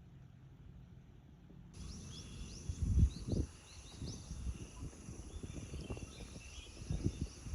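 A faint low hum, then from about two seconds in a steady high insect drone with repeated short chirps, broken by a few low bumps, the loudest about three seconds in and again near the end.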